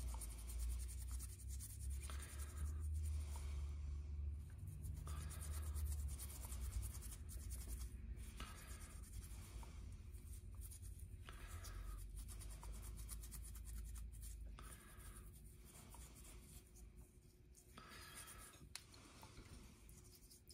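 Faint scratchy rubbing of a worn Scotch-Brite pad being rolled around a small carbon motor brush to scrub the carbon off it, in short bouts about every three seconds. A low rumble runs under it and fades after the first half.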